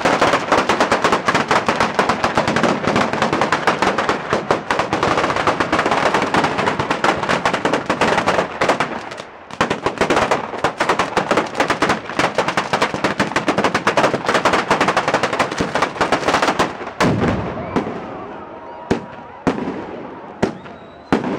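Traca, a long chain of firecrackers lighting the falla for its burning, going off in a rapid, dense rattle of bangs. The rattle breaks off briefly about nine seconds in, resumes, and near the end thins out to scattered single bangs.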